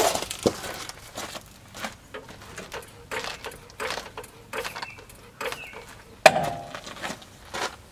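Light metallic clicks and knocks from a van's rear axle, leaf spring and lift block as the axle is jacked slowly up to line the spring's centre hole up with the block, with one sharp clank about six seconds in that rings briefly.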